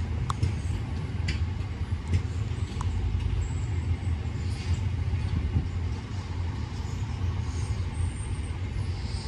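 Vehicle engine running with a steady low rumble, with a few faint clicks over the top.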